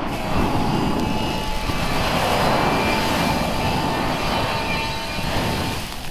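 A PulseFire flamethrower mounted under a rifle shoots a continuous jet of flame into a dry sagebrush bush, which catches and burns. The result is a steady rushing noise with a faint whine, easing off near the end.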